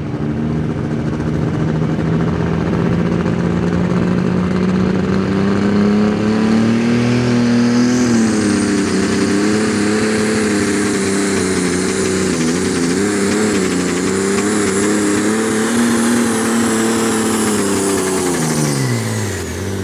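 Deutz-Fahr Limited Superstock pulling tractor running at full throttle while dragging the weight-transfer sled: the engine note climbs several seconds in, then holds under load with wavering revs and a high whine above it. Near the end the revs drop away as the throttle comes off.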